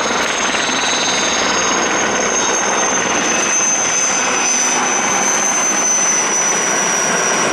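Sikorsky S-64 Air-Crane helicopter flying close by, its twin turbine engines whining on one high steady tone that drifts slightly lower over the dense noise of the engines and rotor.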